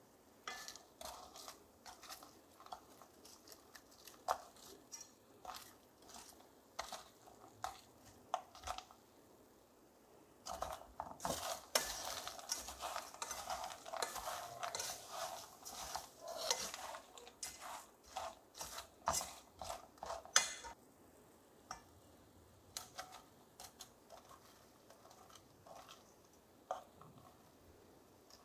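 Wooden spatula stirring sugar-coated peanuts in an aluminium pot, the nuts scraping and clicking against the metal as the sugar crystallises into a dry, sandy coating. Scattered clicks and scrapes at first, then a dense stretch of continuous scraping from about ten seconds in that stops abruptly about twenty seconds in, followed by sparser clicks.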